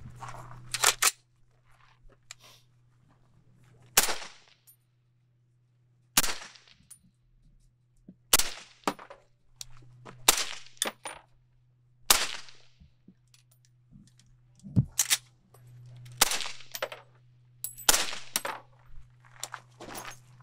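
Suppressed short-barrelled AR-style rifle firing single shots through a prototype .30-calibre suppressor. There are about eight sharp reports roughly two seconds apart, each trailing off briefly.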